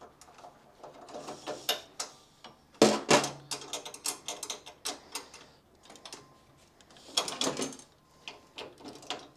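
Irregular metallic clicks, knocks and rattles from hand-tool work on a kit car's handbrake cable fittings. The loudest knock comes about three seconds in, with a brief low ring after it and a quick run of clicks.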